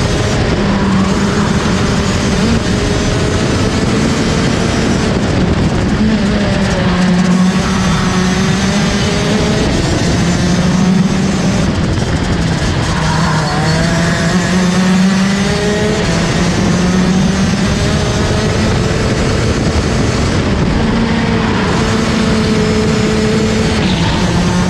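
Rotax DD2 racing kart's 125 cc two-stroke engine running hard at race speed, heard onboard, its pitch repeatedly climbing and dropping as the driver accelerates and lifts through the corners.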